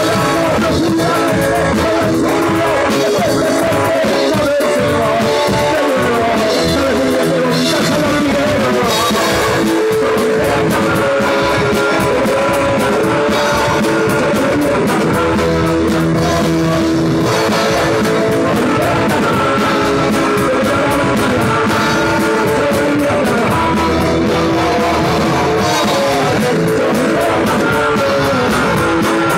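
Punk rock band playing live, loud and without a break: electric guitars and drums with a singer on a microphone.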